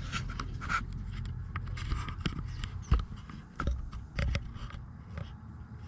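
Handling noises: scattered small clicks, taps and rustles, with a sharper knock about three seconds in and a couple of low thumps shortly after.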